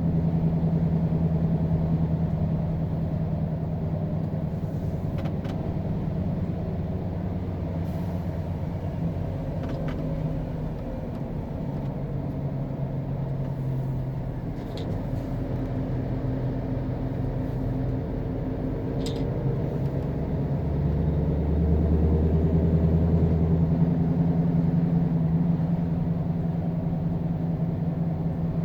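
Scania R520 V8 truck's V8 diesel engine running steadily on its stock exhaust under a heavy load, with a steady drone that grows louder about three-quarters of the way through. A few faint clicks sound over it.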